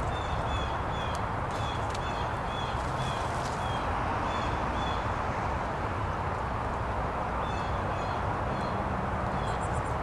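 Small songbirds giving short, high chirps, several a second for the first few seconds, then a few more near the end, over a steady outdoor hiss and low rumble.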